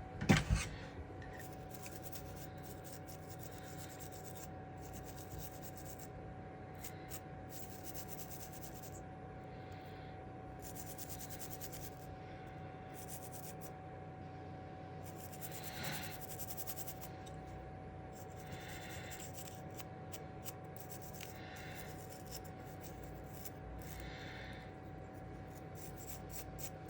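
Faint rubbing and scrubbing strokes in short patches as a circuit board is cleaned by hand, over a steady electrical hum. There are a couple of sharp knocks right at the start.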